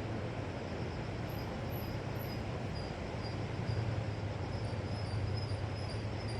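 Steady wash of sea surf on a shore, a low rumble that swells slightly a few times, with faint, short high chirps repeating above it.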